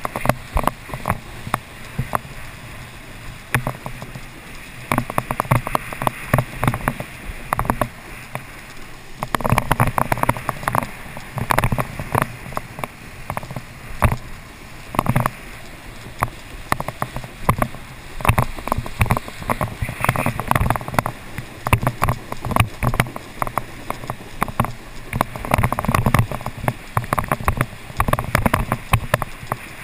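Water rushing and spraying off a towed board skimming across a lake, in irregular surges with sharp slaps as the board hits small chop.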